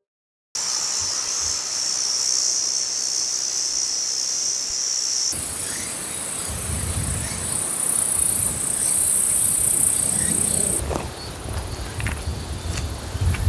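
Insects chirring in a steady, high-pitched chorus that switches abruptly to a higher pitch about five seconds in. A low rumble comes in from about six seconds, and there are a few sharp clicks near the end.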